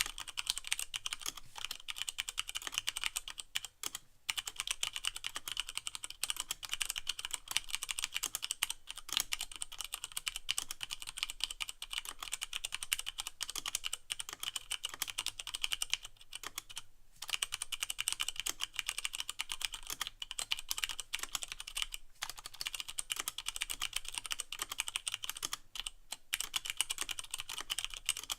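Continuous fast typing on a Leopold FC660M mechanical keyboard with Cherry MX Brown switches and no O-rings, so the keycaps bottom out plastic on plate; a dense stream of clacky keystrokes with brief pauses a few times.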